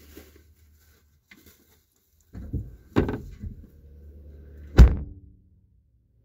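Two heavy thunks about two seconds apart, the second the loudest, with a low steady drone between them.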